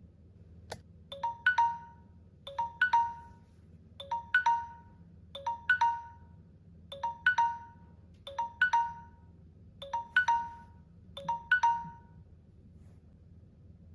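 A Samsung device's alarm tone: a short phrase of a few rising chime notes, repeated about every second and a half, eight times, then stopping. A single click comes just before it starts.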